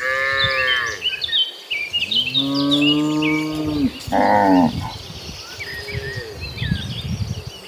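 Cattle mooing: a moo at the start, a longer, lower one about two seconds in, and a short, higher call around four seconds in. Small birds chirp between the calls.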